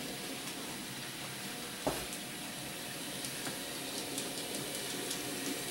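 Steady hiss of room noise, with faint scattered ticks and a single knock about two seconds in.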